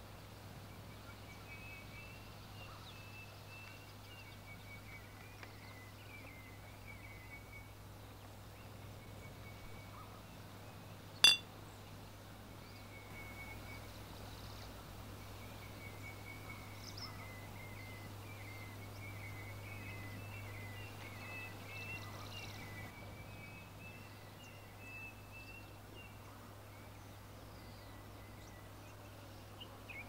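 Drinking glasses clinking together once in a toast, a single sharp chink with a brief ring about eleven seconds in, over faint, steady high-pitched chirping.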